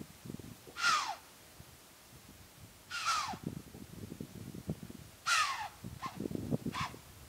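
Deer giving harsh alarm calls: three loud calls about two seconds apart, each falling in pitch, then two shorter ones near the end. The calls are an alarm display, meant to warn other deer and to startle a hidden predator into giving itself away.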